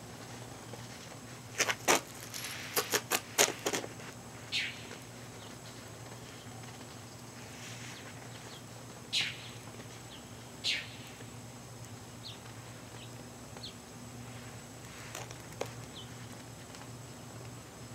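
Hands scooping and packing wet snow into a snowball: a quick run of crunches about two seconds in, then a few short scrapes spread over the rest, over a faint steady low hum.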